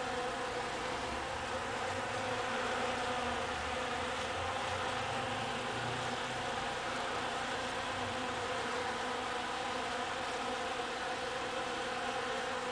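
Honey bees buzzing steadily as they fly among flowers, foraging.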